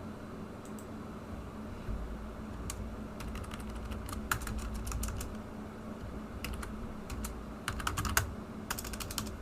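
Computer keyboard typing: irregular keystrokes with a quicker run of keys near the end.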